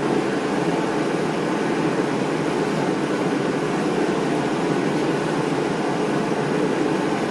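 Steady whooshing hum of a fan running, with no change in level.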